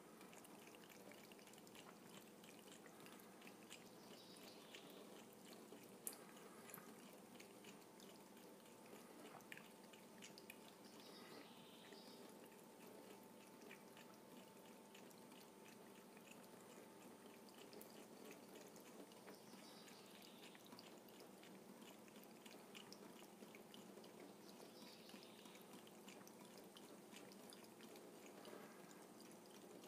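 Faint thin stream of water from a kitchen faucet trickling and dripping into a stainless steel sink.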